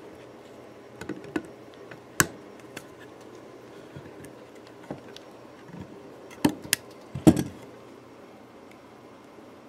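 Scattered sharp clicks and taps of hand tools working the metal frets on a guitar's rosewood fretboard. There are a few about a second and two seconds in, then a quick cluster with the loudest near the end.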